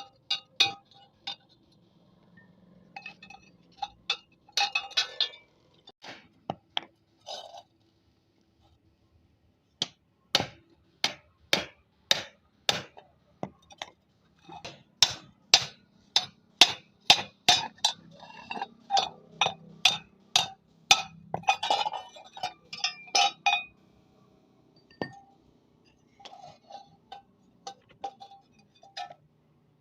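Hammer blows on iron: sharp metallic clinks that ring on after each strike. They are scattered at first, then come in a steady run of two to three a second through the middle, and thin out again near the end.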